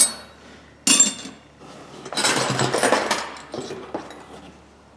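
Steel hand wrenches clinking against each other as they are set down and sorted in a box. There is a sharp clank with a ringing tail about a second in, then a longer jumble of clattering and scraping that fades out.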